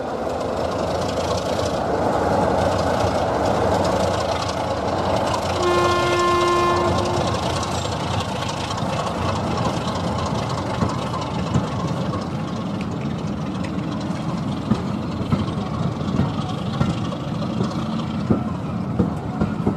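Train running past with a steady rumble, one short horn blast about six seconds in, and repeated clicking of wheels over rail joints in the second half.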